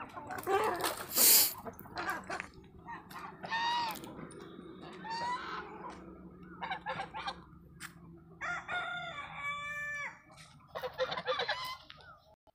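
Free-range desi chickens clucking and calling, with a rooster crowing in one long steady call about two thirds of the way through. A brief loud rush of noise comes about a second in.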